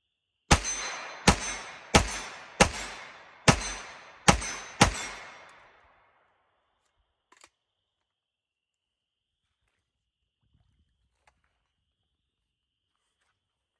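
Seven semi-automatic shots from a Grand Power Stribog SP9A1 9mm carbine fitted with an HB Industries short-stroke buffer, fired at a steady pace less than a second apart, each ringing off in an echo through the trees.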